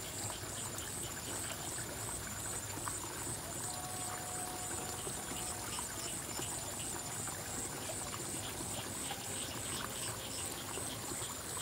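Water trickling and running steadily through a small irrigation ditch.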